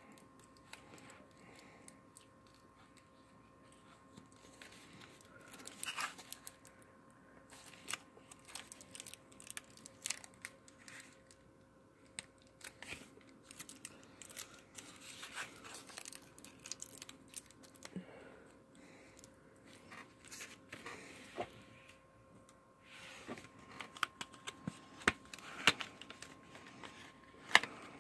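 Wrapping being picked at and torn off a cardboard box of playing cards, with irregular crinkling and small clicks that get louder near the end.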